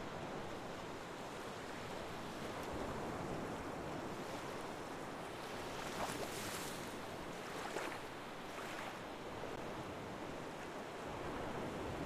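Ocean waves washing in, a steady rush with a couple of louder swells about halfway through.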